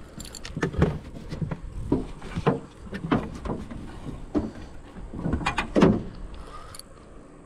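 Spinning reel being cranked and the rod handled while a hooked fish, likely a barramundi, is played in: a string of irregular short scrapes and knocks.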